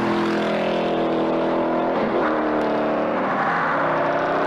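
Ford Mustang's engine revving at high rpm under acceleration. The pitch dips briefly about two seconds in, then climbs again.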